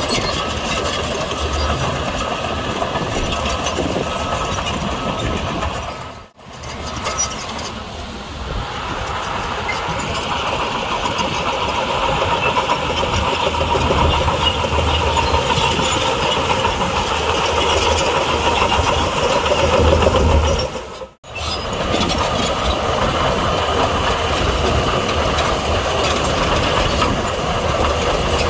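Crawler bulldozer working: its diesel engine running under load with the clatter of its steel tracks. The sound cuts out briefly twice, about six seconds in and again about twenty-one seconds in.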